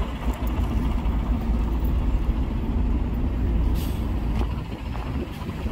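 Street traffic: the steady low rumble of a large road vehicle's engine, with a brief hiss of air about two-thirds of the way through.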